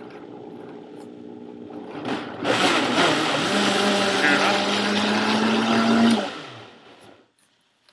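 Countertop blender blending banana, cinnamon and water into banana milk: it starts at a low speed, is turned up much louder about two and a half seconds in, runs steadily at high speed, then is switched off and spins down near the end.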